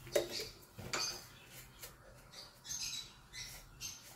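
Black peppercorns dry-roasting in a nonstick frying pan over a gas flame, giving faint scattered clicks and crackles, with short high bird chirps in the background.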